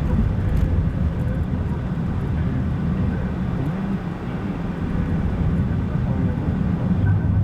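Car driving at a steady speed: a continuous low rumble of engine and tyres on the road.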